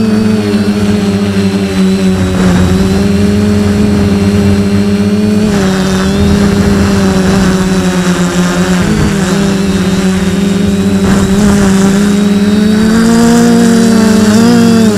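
The four brushless motors and propellers of a DJI F450 quadcopter give a loud, steady drone, heard through a camera mounted on the frame. The pitch wavers with the throttle, dipping around nine seconds in and rising slightly near the end.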